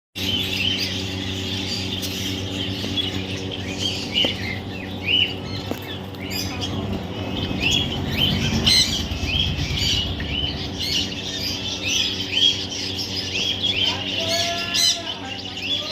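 Baby parrot chirping and squawking in short, high calls repeated every fraction of a second, over a steady low hum.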